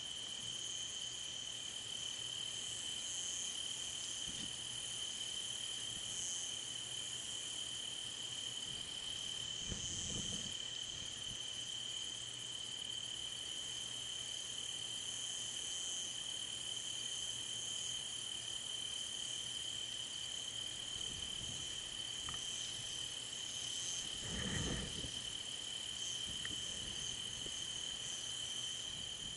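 A steady, high-pitched chorus of crickets and other night insects. Two brief low rumbles come through it, about ten seconds in and again a few seconds before the end, the second one louder.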